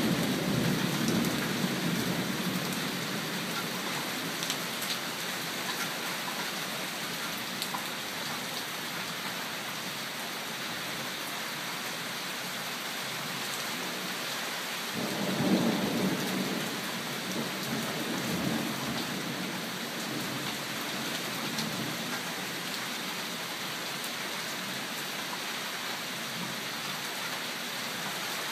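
Thunderstorm: steady rain falling throughout, with a rumble of thunder dying away in the first couple of seconds. About halfway through, a fresh roll of thunder starts suddenly and fades over a few seconds.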